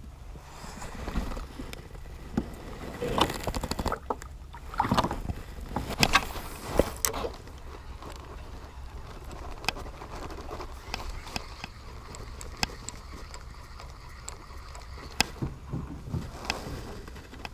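Scattered knocks, clicks and rustles of gear being handled aboard a plastic fishing kayak, busiest in the first half, over a steady low hum.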